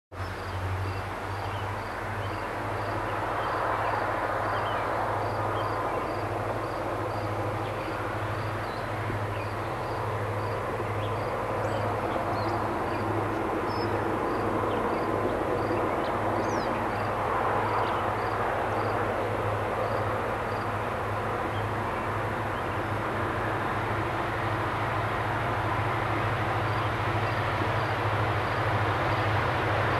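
Distant EMD SD26 diesel-electric locomotive working as it approaches, a steady low throbbing engine drone that slowly grows louder.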